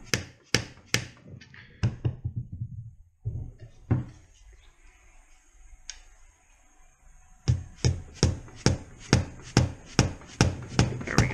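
Mallet tapping an aluminum seal installer, driving the intake camshaft oil seal into a Mazda Miata 1.8 BP cylinder head. The taps come evenly about two a second, mostly stop for about three seconds mid-way, then resume at the same pace.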